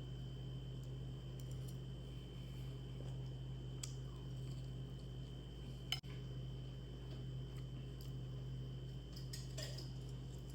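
Eating with cutlery: a few sharp clicks of a knife and fork on a plate, the loudest about six seconds in, over a steady low hum.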